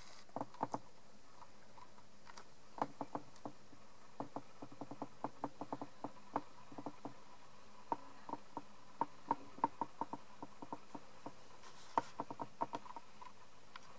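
Faint, irregular light clicks and ticks, dozens of them at uneven intervals, bunched more closely in the middle.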